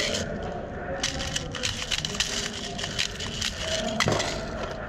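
Quick, irregular clicks and cracks of airsoft fire, BBs striking nearby surfaces, with one louder knock about four seconds in.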